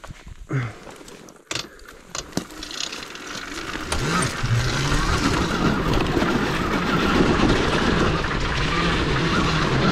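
Home-built electric dirt bike with a Zero SR electric motor setting off along a dirt trail. A few sharp knocks come in the first couple of seconds, then a steady rush of riding noise builds from about three seconds in, with a low motor hum that wavers with the throttle.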